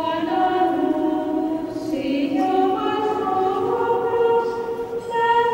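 Choir singing a slow hymn in long held notes, stepping to a new note every second or so.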